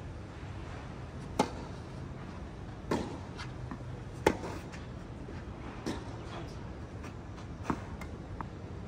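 Tennis rally: a ball struck by rackets five times, about every one and a half seconds, with fainter ball bounces in between.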